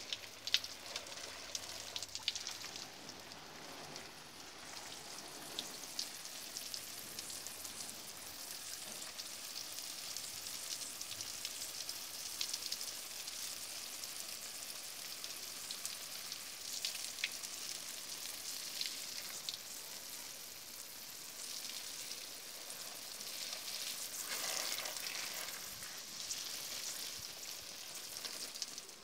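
Water spray from a garden hose hitting potted succulents, their leaves and soil: a steady rain-like hiss with scattered spatters and splashes. It grows louder for a couple of seconds about two-thirds of the way through.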